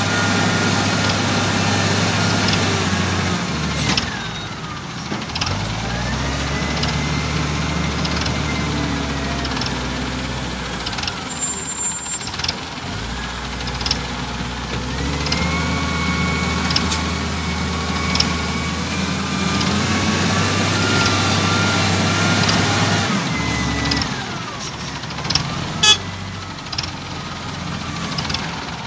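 XCMG LW300KN wheel loader's diesel engine working: it revs up about five seconds in and again about fifteen seconds in, holds high for several seconds each time while the loader scoops and lifts a bucket of soil, then drops back. A whine rises and falls with the revs, and a few knocks come near the end.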